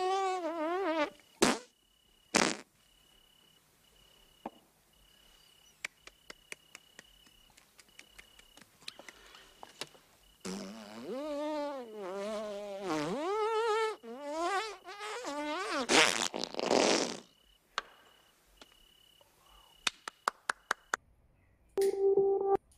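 Long, drawn-out comic farts whose pitch wobbles quickly: one trailing off about a second in and a louder one from about ten seconds in, lasting several seconds. Behind them a cricket chirps in a steady pulse, with scattered light clicks.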